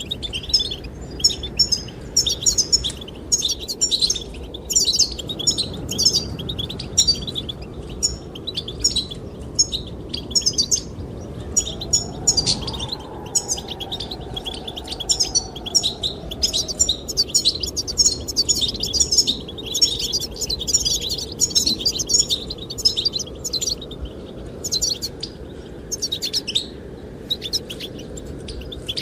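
Goldfinches singing: a continuous, rapid, high twittering of chirps and trills, over a steady low rush of wind.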